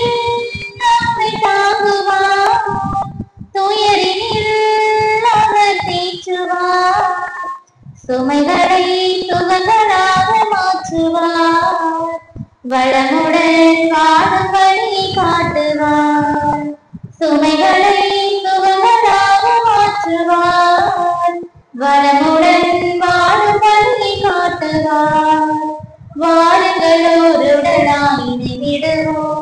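A woman singing a Tamil entrance hymn over the church's microphone, in sung phrases of a few seconds each with short breaks between them.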